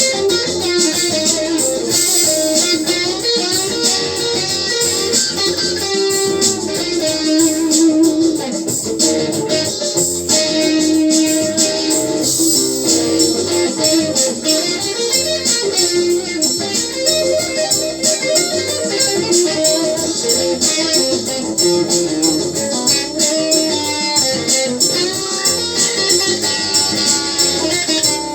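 Instrumental music: a plucked, guitar-like melody over a steady beat.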